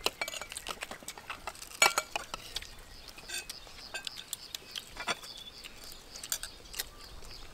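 Spoons clinking and tapping against plates as several people eat, in scattered light clicks, the sharpest about two seconds in.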